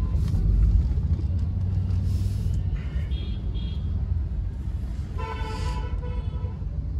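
Vehicle horns honking in stopped city traffic, heard from inside a car over a steady low engine and traffic rumble: two short high beeps about three seconds in, then a longer horn blast of about a second near the end.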